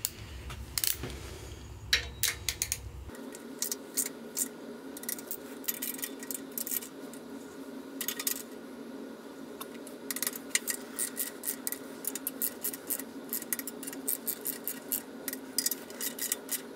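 Ratchet of a torque wrench clicking in quick runs, with light metal clinks, as the bolts on a tractor transmission's PTO shifter housing are tightened.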